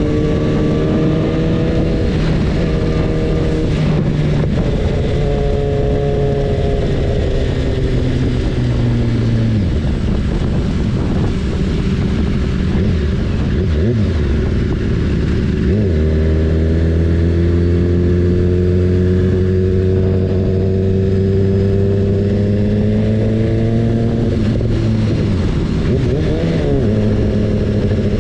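BMW S1000RR's inline-four engine running on the move. Its pitch eases down about a third of the way in, then climbs again and rises slowly before falling near the end, over a steady rushing noise.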